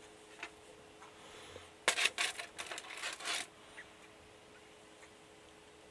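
Plastic serving spoon scooping broccoli and knocking and scraping against cookware. It makes a quick run of clicks and scrapes lasting about a second and a half, starting about two seconds in, over a faint steady hum.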